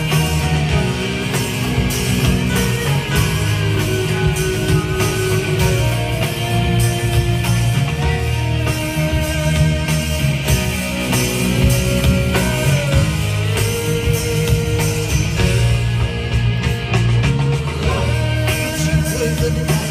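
Live rock band music played loud through a concert sound system, with heavy drums and bass, guitar and a held, wandering melody line, heard from among the audience.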